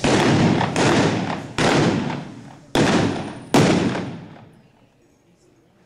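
Five blank-loaded revolver shots in about three and a half seconds, fired from horseback at balloon targets in mounted shooting. Each shot echoes and dies away in the metal arena building.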